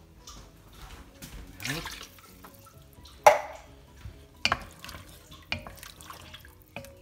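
Wooden spoon stirring a watery tomato sauce in an enamelled cast-iron casserole, with sloshing liquid and several sharp knocks, the loudest about three seconds in.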